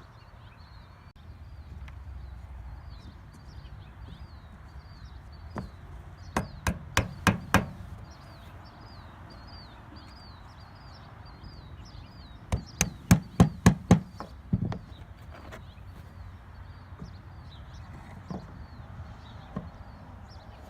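Mallet blows knocking the wooden parts of a Langstroth brood frame together: a quick run of about six strikes some six seconds in, a second run of about seven strikes about twelve seconds in, and a few single taps later.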